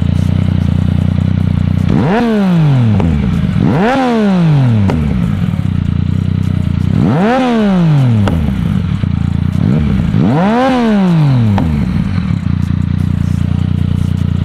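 Motorcycle engine running steadily, revved four times with quick throttle blips, each rising sharply in pitch and falling slowly back.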